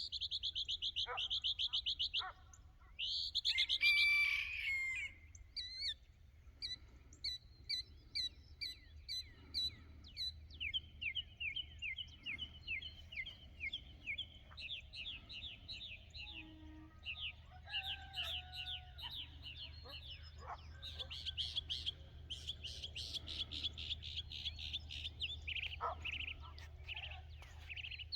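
Wild songbirds singing, one song running into the next: fast trills and runs of high, repeated chirps, over a faint steady low hum.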